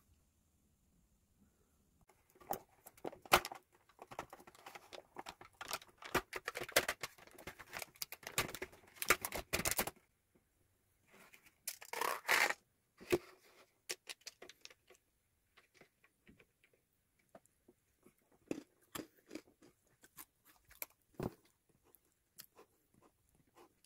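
Close handling noises in a small room: dense rustling and tearing with many sharp clicks from about two seconds in to ten seconds, a short loud burst about twelve seconds in, then scattered light clicks and taps.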